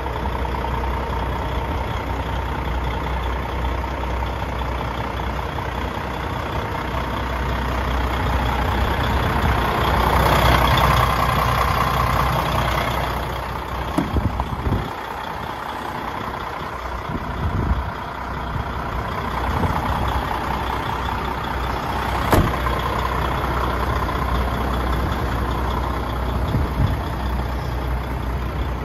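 The PACCAR MX inline-six diesel of a DAF XF105 410 tractor unit idling steadily, louder for a few seconds about a third of the way in. One sharp click a little past the middle.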